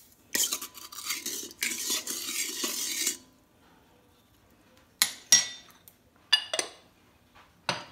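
A spoon stirring sugar and salt into water in a stainless steel mixing bowl, scraping around the bowl for about three seconds. Then a few sharp metallic clinks that ring briefly, the utensil knocking against the bowl.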